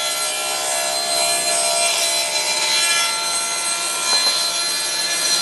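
Table saw running and ripping a plywood panel to square it, the blade set half a tooth above the stock. A steady whine from the blade over the rasp of the cut.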